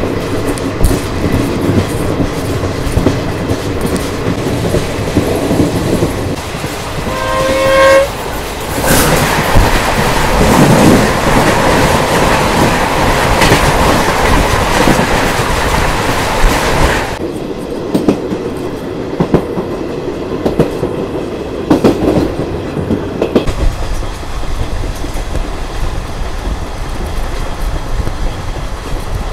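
Running noise and wheel clatter of an Indian Railways express train at speed, heard from an open coach door. About seven seconds in a train horn sounds briefly, then a train passing on the next track makes the rush louder for about nine seconds before it cuts off sharply, leaving the steady running clatter.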